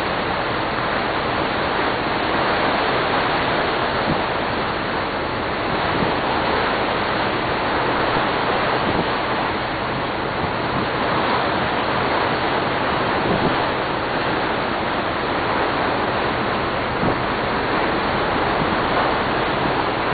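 Steady rush of wind and water on the deck of a ferry under way, with wind buffeting the microphone.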